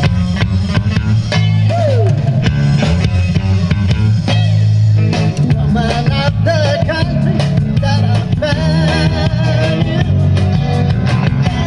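Rock band playing at full volume: drums, bass and electric guitar, with a singing voice wavering over the band in the second half.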